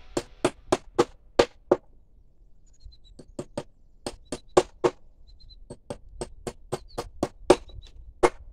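Hammer blows at about three or four a second, in irregular bursts with short pauses, typical of driving nails while repairing a fence.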